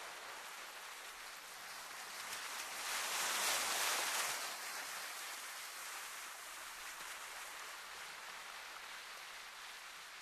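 Sea surf: a steady hiss of moving water, with one wave swelling louder about three seconds in and dying away a second or two later.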